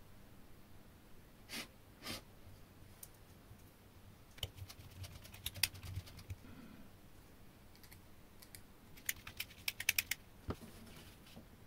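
Small metal parts clicking and clinking as a hex key turns a tiny grub screw in the blade clamp of a titanium jeweler's saw frame. A couple of soft clicks come first, then two runs of quick clicks, one about halfway through and one near the end.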